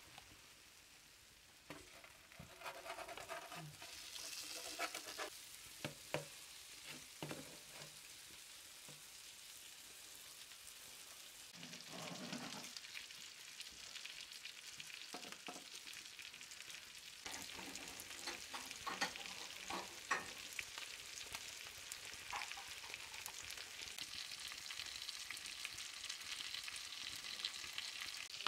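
Small bluefish and horse mackerel frying in oil in a pan over a wood fire: a steady sizzle with many small pops, getting louder about two seconds in.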